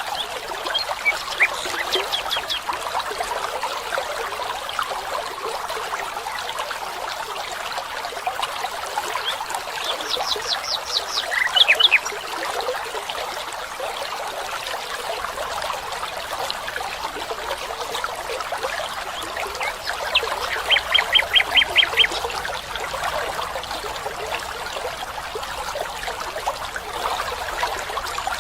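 A stream trickling steadily, with a bird calling in quick runs of short repeated notes, once about ten seconds in and again about twenty seconds in.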